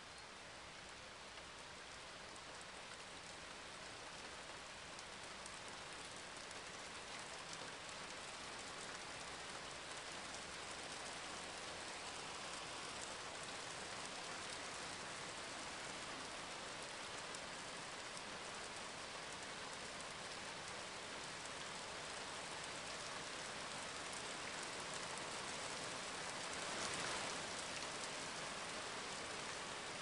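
Steady rain with faint scattered drop ticks, swelling slightly near the end.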